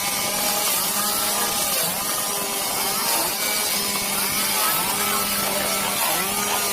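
Chainsaw running and cutting wood, its engine pitch rising and falling again and again as the chain bites.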